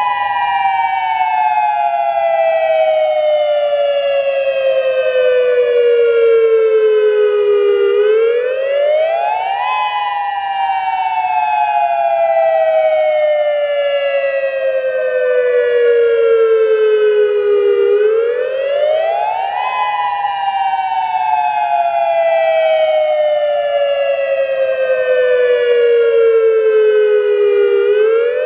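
Federal Signal Modulator II 8032B-C electronic outdoor warning siren sounding its dual-tone wail. Two close pitches sweep up quickly, then slide slowly down over about eight seconds, with a new rise about every ten seconds.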